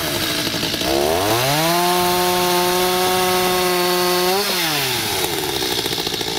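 Two-stroke chainsaw revved up about a second in and held at full throttle for about three seconds while it cuts through the top of a wooden bridge pile, then dropping back to idle.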